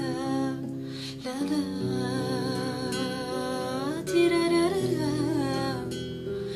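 A woman singing a slow melody while playing an acoustic guitar, the guitar's plucked notes held under her voice.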